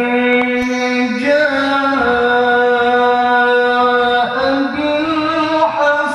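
A male qari reciting the Quran in melodic tilawah style through a handheld microphone, holding long sustained notes that step slowly up and down in pitch a few times.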